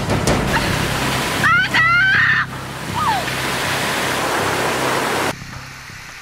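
Rushing water of a waterfall pouring over rock, steady throughout, with a brief high-pitched cry about a second and a half in. The water sound drops quieter shortly before the end.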